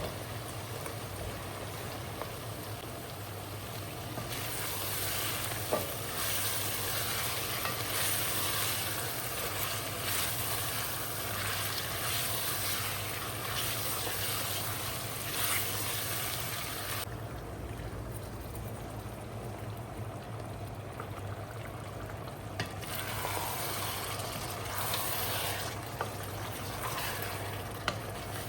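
Food frying in a pan, a steady sizzle with occasional clicks of stirring. The sizzle grows louder a few seconds in, dies down for several seconds past the middle, then picks up again.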